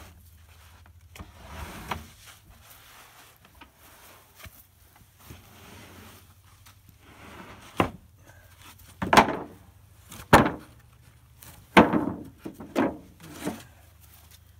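Rough-sawn lumber boards sliding and scraping as they are pulled off a wagon, then about six sharp wooden knocks in the second half as boards are dropped onto a stack.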